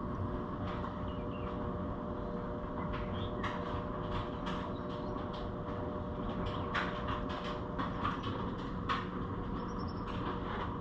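Scattered light clicks and taps of hands working on the ATV's spark plug coil connector and dielectric grease tube, over a steady low hum.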